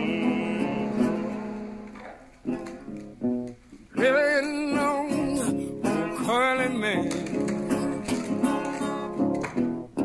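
Background music: an acoustic guitar song with a singing voice. The guitar chords fade down about two seconds in, and the voice comes back with wavering held notes about four seconds in.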